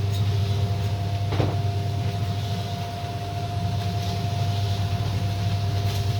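Livestock feed mixing machine running steadily, its motor giving a low, even drone with a constant higher whine over it.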